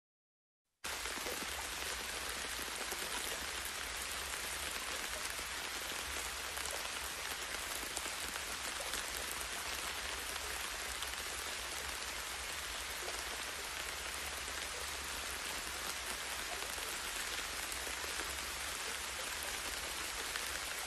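Steady, even outdoor hiss on a camera's soundtrack, like light rain or wind noise, with a low rumble underneath. It cuts in abruptly about a second in and stops abruptly at the end.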